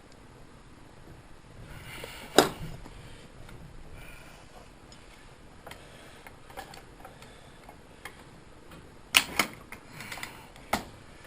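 Metal hand tools clinking and knocking against engine parts: a sharp clack a little over two seconds in, scattered light clicks, then three sharp knocks near the end.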